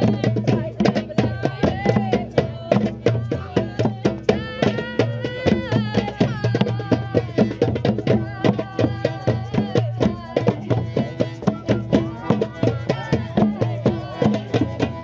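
Hand drums played together in a steady, driving rhythm of about four strokes a second, with voices singing a wavering melody over them for most of the time.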